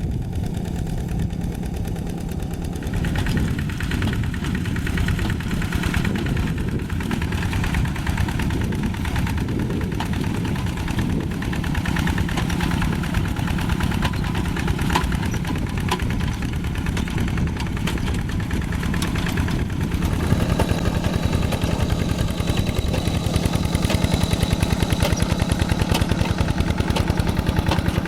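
Diesel tractor engine running steadily under ploughing work, with a rapid, even chugging pulse. It gets a little louder and more evenly pulsed about two-thirds of the way through.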